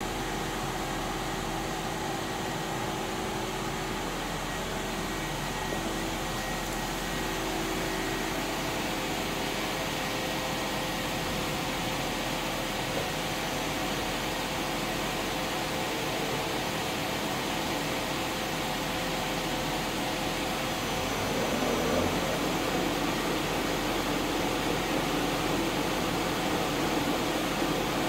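You Ji YV-1200ATC CNC vertical boring mill running with its rotary table spinning, a steady machine whir and hum that grows a little louder about 21 seconds in.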